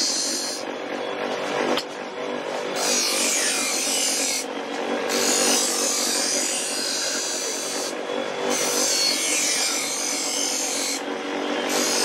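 Electric knife-sharpening grinder's stone wheel running with a steady motor hum while a steel blade is pressed against it, a high grinding rasp. The grind stops briefly about four times as the blade is lifted off and set back on the wheel.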